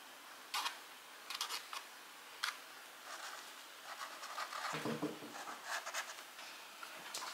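Marker pen tip scratching and rubbing across a canvas as lines are drawn, with a few sharp light clicks in the first half and a brief low sound about five seconds in.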